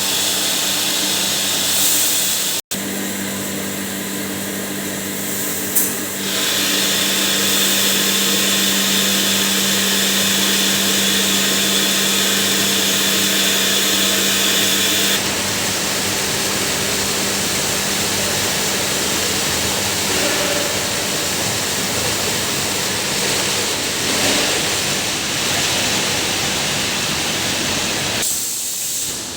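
A motor-driven rice washing machine running with a steady electric whirr and hum. The sound changes abruptly about 6 seconds in and again about halfway through, with a momentary dropout near 3 seconds.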